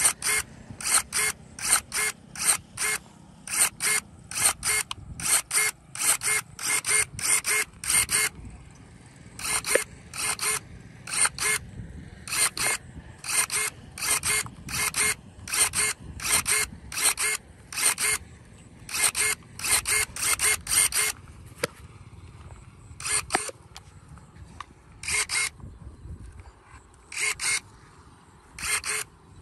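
Cordless electric pruning shears working their motor-driven blade over and over. Each stroke is a short, sharp mechanical snap, and they come about two a second in runs, with a few short pauses between runs.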